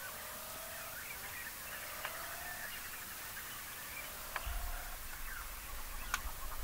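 Faint open-air ambience with a bird calling in the distance: a short whistled note repeated three or four times, with a few faint high chirps.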